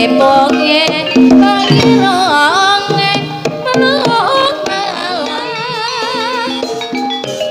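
Live jaranan dangdut music for an ebeg dance: hand drums under a melody with wide, wavering vibrato that becomes prominent about two-thirds of the way in.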